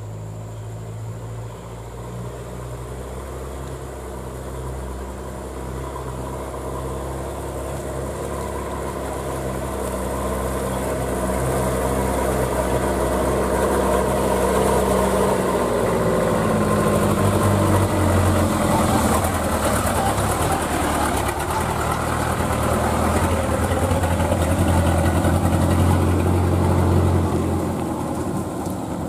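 A Ragasa 4x4 truck's diesel engine running as the truck drives up a dirt track. It grows steadily louder as the truck approaches and goes past, then falls away near the end as the truck moves off.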